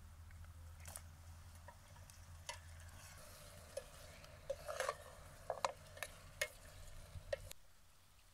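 Raw meat chunks being spooned into a metal pot of stew over a campfire: a string of short clinks and wet plops as the spoon knocks the pot and the pieces drop in, thickest about four to seven seconds in. A low steady rumble lies underneath until the sound drops away near the end.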